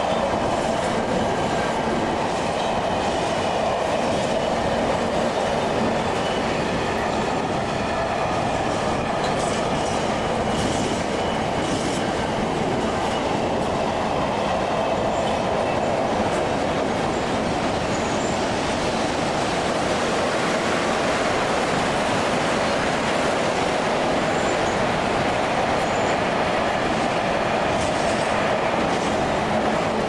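A train running through the station: a steady rumble of wheels on rail that holds the same level throughout, with faint steady whining tones in the first half.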